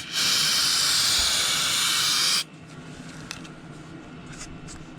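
Aerosol brake cleaner sprayed in one continuous hiss for about two and a half seconds, cleaning grit off the crankshaft snout before a repair sleeve goes on; it cuts off sharply, leaving a few faint clicks.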